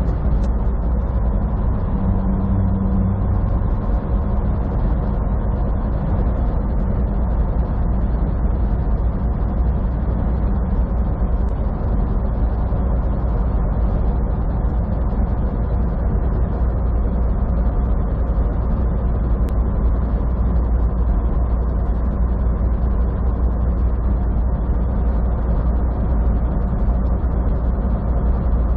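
Semi truck cruising at highway speed, heard from inside the cab: a steady low engine drone mixed with road noise.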